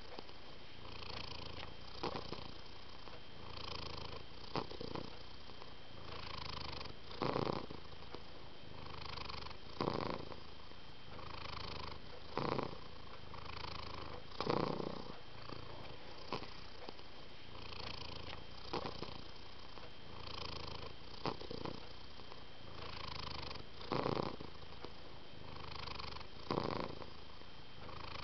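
Domestic cat purring steadily up close, in a regular cycle with a louder pulse about every two and a half seconds.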